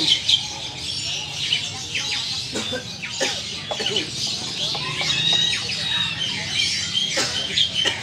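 Birds calling, with chicken-like clucking and many short, sharp chirps over a steady hiss.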